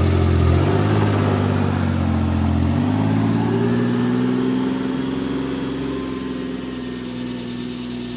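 Kawasaki Mule Pro-FXT side-by-side's 812 cc three-cylinder engine pulling away. Its pitch rises about three seconds in, then holds steady and slowly fades as the vehicle drives off.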